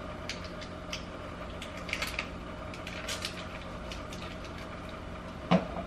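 Light handling noises as butter is unwrapped and portioned by hand: scattered small clicks and rustles over a steady low hum.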